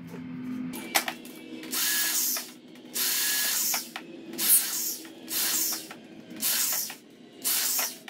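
Handheld corded electric drill run in about six short trigger bursts, each under a second, into a wooden board. A sharp knock comes about a second in.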